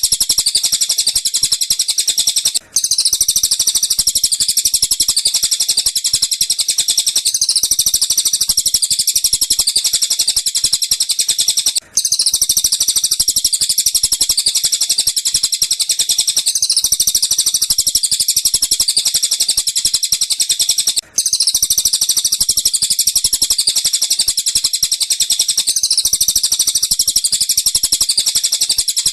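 Recorded tengkek buto and cililin bird calls played as a masteran track: rapid, continuous high-pitched chirping with brief breaks about every nine seconds, where the recording loops.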